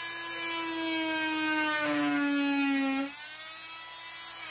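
A small corded handheld power tool's motor runs with a steady whine as its blade cuts a slot into PVC pipe. The whine grows louder and dips slightly in pitch under load in the middle, then drops back suddenly just after three seconds and runs on lighter.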